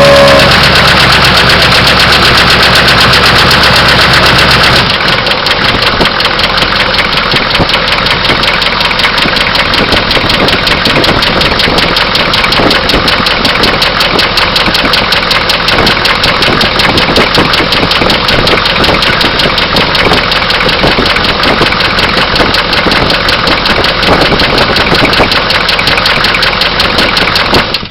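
Oldsmobile diesel engine running with a rapid, even knock, which the owner suspects is a bearing knock or possibly an injector. A steady low hum under the knocking drops away about five seconds in.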